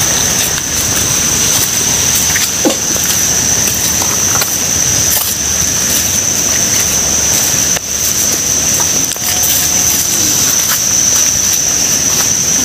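A steady, high-pitched insect drone over a constant rushing of water, with a few light footsteps on stones.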